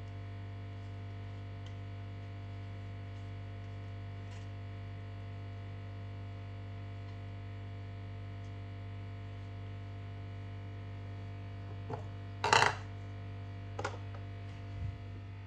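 Steady low electrical mains hum, with a few short clinks and clatters of kitchen utensils near the end, one of them much louder than the rest.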